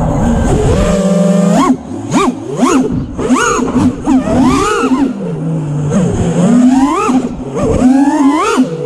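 FPV quadcopter's brushless motors and propellers whining, pitch swooping sharply up and down over and over as the throttle is punched and chopped in freestyle flight. The first couple of seconds are a steadier, lower hum.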